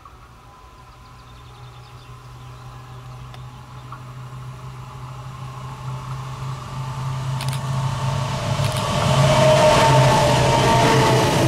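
A train approaching and growing steadily louder for about nine seconds, with a steady low hum under a rising rush of running noise that levels off near the end.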